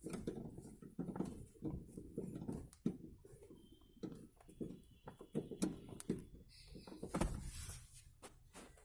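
Socket spanner working the seat-mounting bolts under a car seat: a string of light, irregular metal clicks and knocks as the bolts are tightened.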